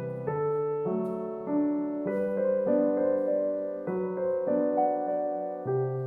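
Soft background piano music, held chords that change about once a second.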